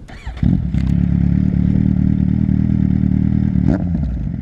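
Kawasaki Z800's inline-four through an SC Project aftermarket exhaust starting up: a brief crank, catching about half a second in, then idling steadily and loud.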